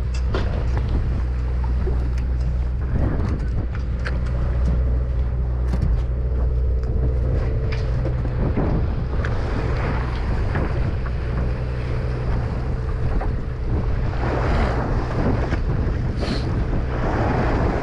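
Steady low hum of the boat's engine, under wind buffeting the microphone and waves splashing along the hull.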